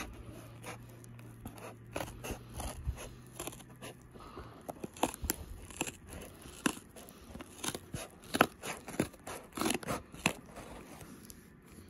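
Toy packaging being handled and pulled open: a run of irregular crackles and sharp clicks, thickest in the middle and latter part. A faint low hum runs under the first few seconds.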